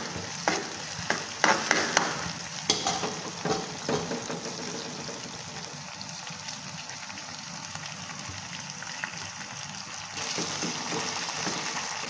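Sliced onions sizzling in oil in a metal wok, with a metal spoon clinking and scraping against the pan in the first few seconds. The sizzle then runs steady and grows louder about ten seconds in.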